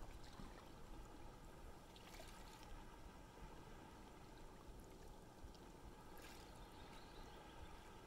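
Calm sea water lapping faintly at the shore, with two soft washes of small ripples, about two and six seconds in.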